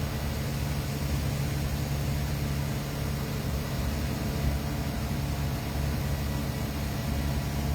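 Boat engine running steadily: an even low hum with no change in pitch or level.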